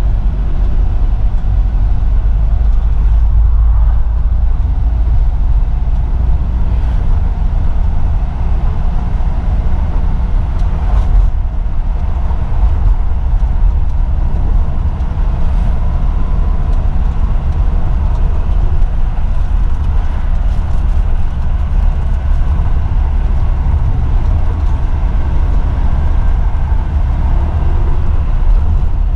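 Isuzu Elf NKR 55 microbus's four-cylinder diesel engine running under way with road and tyre noise, heard from inside the cab as a steady low rumble.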